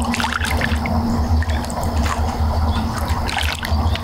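Water splashing and trickling as a hooked carp is brought to the bank and landed, over a steady low rumble.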